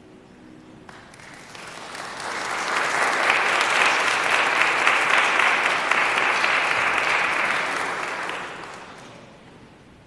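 Church congregation applauding: the clapping starts about a second in as the piano's last chord fades, swells, then dies away near the end.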